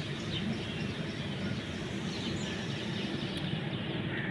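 A steady low background rumble, with faint short crackles from a kitten chewing dry kibble.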